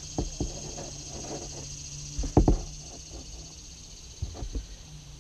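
Kayak paddle knocking against the plastic kayak hull during paddling: two knocks near the start, the loudest double knock about halfway, and a few more near the end, with paddle water splashing between.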